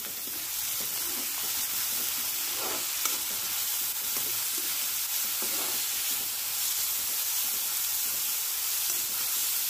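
Chopped onions, green chillies and fried dry prawns sizzling in hot oil in an iron kadai, with a steady frying hiss. A metal spatula stirs them, scraping the pan now and then.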